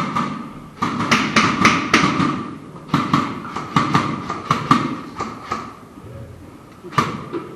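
A run of sharp clicks and knocks, several in quick succession in two clusters and two more near the end, over muffled voices.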